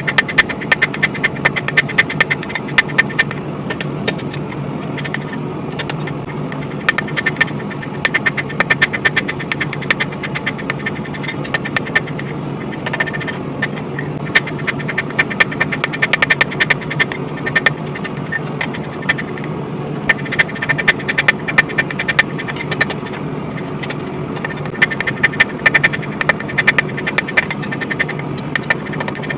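Runs of rapid hammer blows on hot steel at the anvil, each blow ringing, coming in bursts of a few seconds with short pauses between, as the bevels are forged into a coil-spring sword blade. Under them a propane forge runs with a steady roar.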